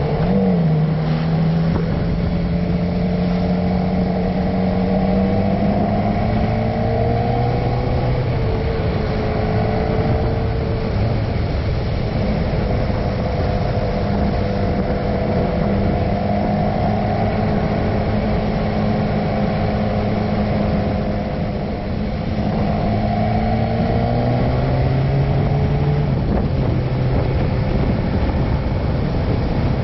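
Motorcycle engine pulling along the road, its pitch climbing slowly and dropping back at gear changes, about eight seconds in and again near the end. A steady rush of wind and road noise runs underneath.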